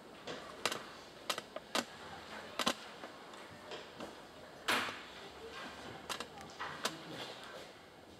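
Several sharp knocks and clicks at irregular intervals over faint room tone, the loudest a little under five seconds in.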